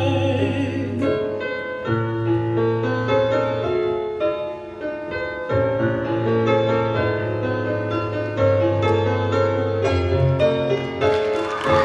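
Slow, lyrical piano passage with a run of single notes over long held bass notes. Near the end an audience starts to whoop and cheer over it.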